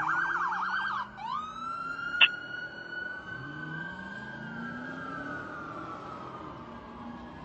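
Fire truck siren sounding a rapid yelp for about a second, then switching to a slow wail that sweeps up and falls away gradually, fading as it goes. A brief sharp blip comes about two seconds in.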